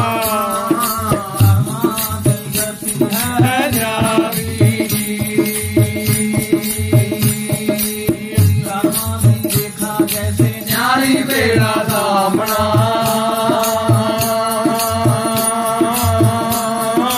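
A man singing a Punjabi devotional song, his voice sliding and bending between held notes, to a tumba (tumbi), a one-string plucked instrument, struck in rapid strokes. A drum keeps a steady low beat underneath.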